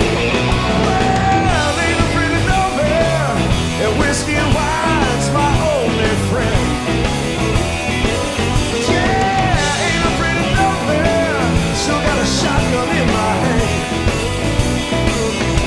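Blues-rock band playing live at full volume, with a lead line of notes that bend up and down over bass and drums.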